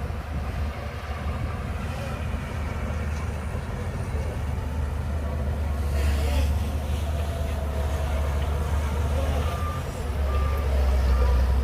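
Shantui DH17C2 bulldozer's diesel engine running under load with a deep, steady rumble that gets louder near the end. Near the end come three short high beeps, like a reversing alarm.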